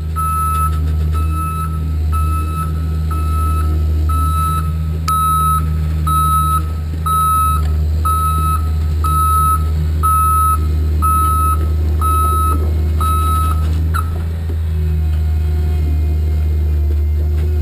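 Tracked swamp crawler's diesel engine running steadily as the machine backs, its reversing alarm beeping about one and a half times a second. The alarm stops about fourteen seconds in, and the engine note then lifts slightly.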